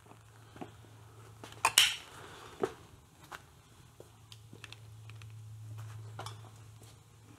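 Light metallic clinks and taps of metal parts and tools being handled at the bench, a few scattered through, the sharpest about two seconds in, over a low steady hum.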